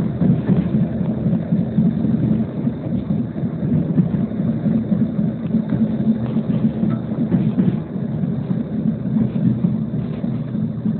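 МиНиН low-floor tram running along the line: a steady low rumble of wheels on rails and drive.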